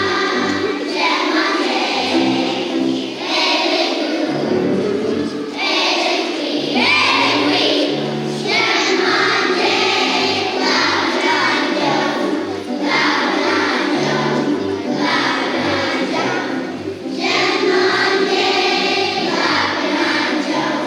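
A group of young children singing a song in French together, over instrumental accompaniment with a moving bass line.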